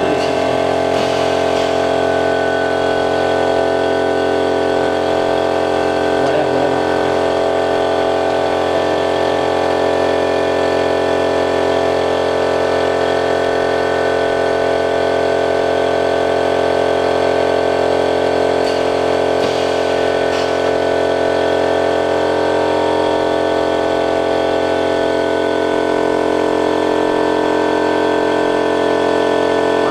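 A steady machine hum made of many even tones, from workshop machinery running.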